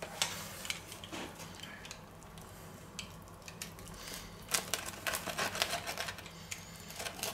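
Knife cutting through a baked pizza crust on a wooden board: a few faint clicks at first, then from about halfway through a rapid run of crackling and scraping as the blade saws through the crust.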